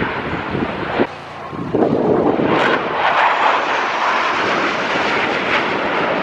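Jet engine noise from US Air Force Thunderbirds F-16 fighters flying past in formation, a steady loud roar. It drops out abruptly about a second in, then comes back louder.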